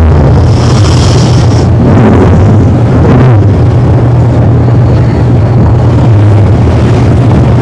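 A man snoring, heavily distorted and bass-boosted, so that it comes through as a loud, constant low rumble that shifts with each breath every few seconds.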